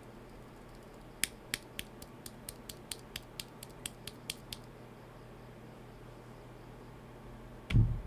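A loose "Ender" silent frankenswitch (Holy Panda clone housing, Zifriend Panda stem) clicking lightly as it is worked in the fingers, about fifteen short sharp clicks at roughly four a second. Near the end, one loud thump as the switch is pushed down into a hot-swap socket of the keyboard.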